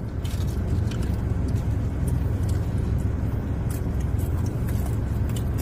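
Steady low hum of a car's running engine heard inside the car's cabin, with faint light clicks from snack cups and food being handled.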